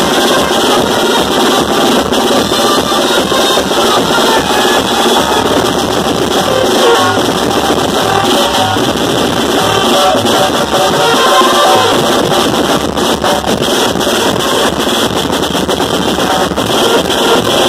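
Street brass band playing loud: trumpets and a saxophone carry the tune over a bass drum beaten with sticks in a steady rhythm.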